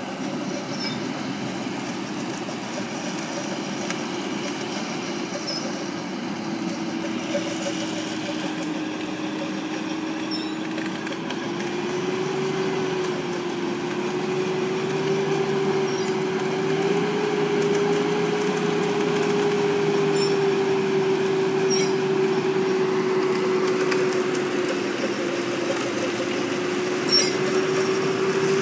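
Winch motor whining steadily under load as a mud-bogged 4x4 SUV is pulled along its steel cable, the pitch stepping up slightly about twelve seconds in, with the noise of the vehicle running underneath.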